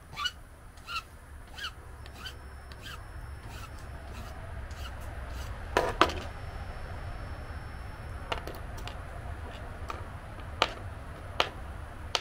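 Flat steel hand file drawn across a cast lead jig head in a few short squeaky strokes, filing the casting down. About six seconds in, a sharp double clack as the file is set down on the table, followed by scattered light clicks of small metal parts being handled.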